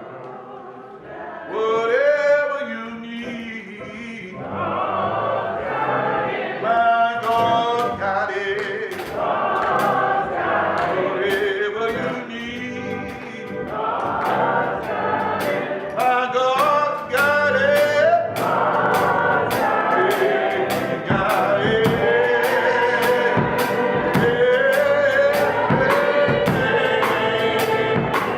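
Gospel choir singing in a church service. A steady percussive beat joins about seven seconds in.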